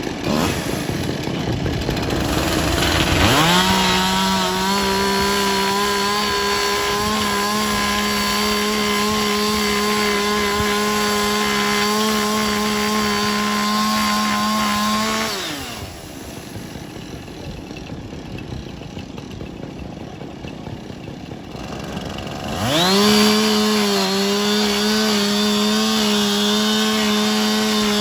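Chainsaw idling, then revved up about three seconds in and held at a steady high speed while cutting roof-ventilation holes. Around the middle it falls back to idle for several seconds, then revs up again and holds full speed.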